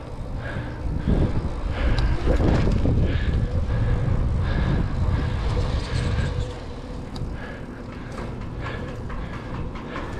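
Riding noise of a 700c single-speed bicycle: wind rushing over the microphone and tyres running on concrete, with light clicks and rattles from the bike. The rumble is heavier for the first six seconds, then eases off.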